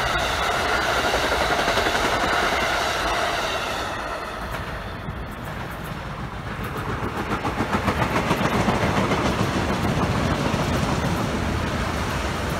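An Amtrak train's stainless-steel coaches rolling past on electrified track, fading after about four seconds. Then a Metro-North M8 electric multiple-unit train comes by, its wheels clicking in a steady rhythm over the rail joints.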